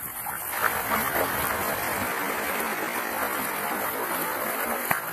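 Sea water washing and sloshing against the kayak's hull and the rock walls of a narrow gap, a steady rushing wash with a few sharp clicks in it.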